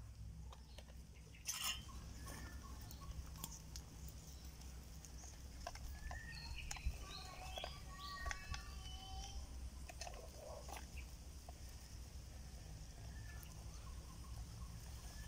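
Birds chirping in short high bursts, busiest in the middle, over a steady low rumble, with scattered small knocks and scuffs from handling on bare ground.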